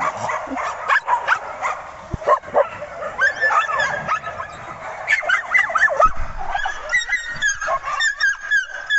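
A group of puppies yipping and whining, many short high calls overlapping one another, busiest in the second half.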